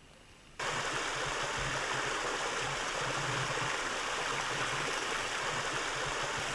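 Shallow mountain stream rushing over rocks and flat stones, a steady water noise that comes in abruptly about half a second in.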